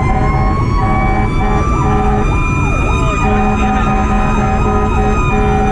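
Fire engine sirens on a run: one siren's wail climbs slowly in pitch while an electronic siren yelps rapidly up and down about twice a second, with steady blaring tones starting and stopping in stretches, over the 2010 Pierce Arrow XT fire engine's engine and road noise.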